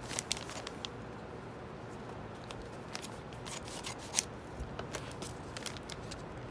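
A small package being opened by hand: light, scattered clicks and rustles of packaging being handled, with a few quick snips or ticks in short clusters.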